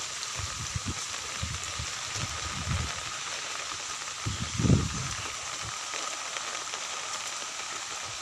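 Steady hiss of monsoon rain, with low muffled bumps on the microphone, the loudest about halfway through.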